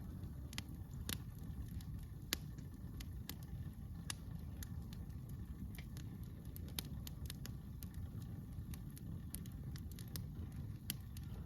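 Campfire of burning wood crackling, with irregular sharp pops and snaps, a few a second, over a low steady rumble.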